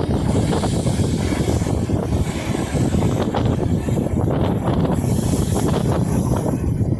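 Wind buffeting the microphone in a steady, uneven rumble, with a brighter hiss about five seconds in.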